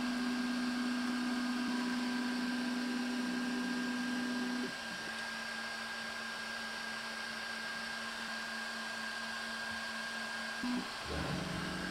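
Snapmaker J1 3D printer's motors running as the print bed and toolheads move: a steady low motor hum with faint high tones above it. The hum drops in level about five seconds in and changes again near the end.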